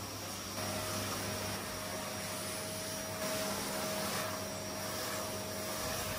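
Canister vacuum cleaner running steadily as its upholstery nozzle is drawn over velvet furniture; a steady whine joins the motor noise about half a second in.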